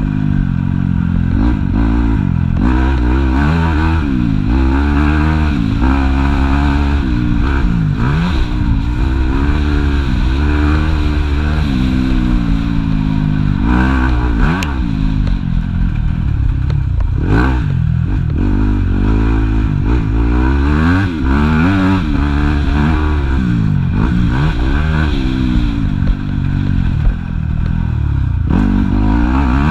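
Yamaha YZ250F's 250 cc four-stroke single-cylinder engine heard from on board while riding, its pitch rising and falling over and over as the throttle is opened and closed through the track's turns and jumps.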